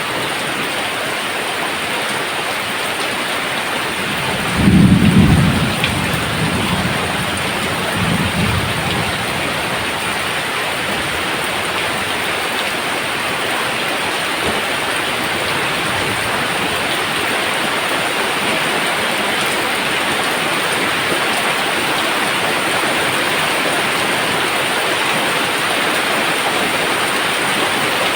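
Steady rain falling, with a rumble of thunder about five seconds in and a shorter, weaker rumble a few seconds later.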